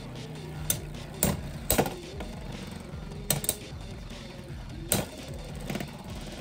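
Two Beyblade X tops (Hellscythe Ball on 460 and 560 ratchets) spinning in the stadium and clacking into each other in several sharp hits at uneven intervals, with background music underneath.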